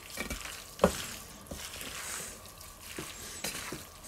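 A gloved hand kneading chopped raw chicken with spice in a stainless steel bowl: soft wet squishing with small clicks against the bowl and a sharp knock about a second in.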